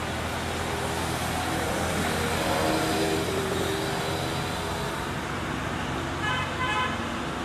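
Road traffic noise from passing vehicles, steady throughout, with a short toot about six seconds in.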